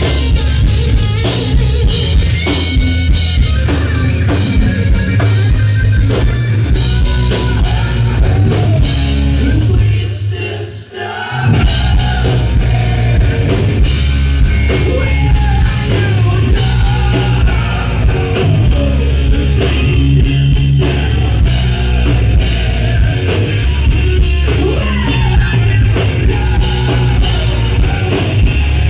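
Live hard rock band playing loud: distorted electric guitars, bass and drum kit, with a singer. Near the middle the band stops for about a second, then comes back in together.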